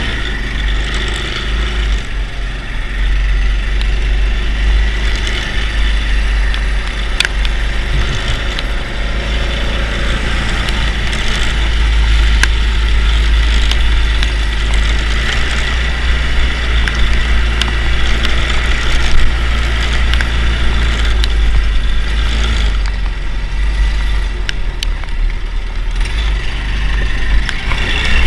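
Honda GX200 single-cylinder engine running on a go-kart under way, under a heavy low rumble, with a few sharp clicks.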